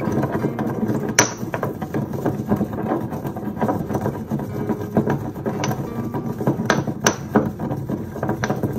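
Pestle pounding and grinding in a mortar, crushing dried herbs, red salt and wood chips: a fast, irregular run of knocks and gritty scrapes.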